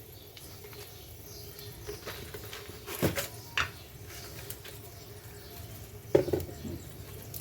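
Whole spices and bay leaves sizzling faintly in hot oil in a kadai, with a few short knocks of a utensil against the pan about three seconds in and again near the end.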